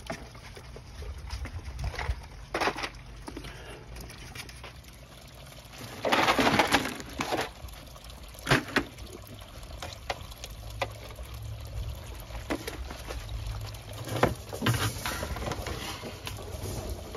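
Water splashing and sloshing in a small garden pond as a submersible pond filter is dropped in. The loudest splash comes about six seconds in, with smaller splashes and knocks scattered around it.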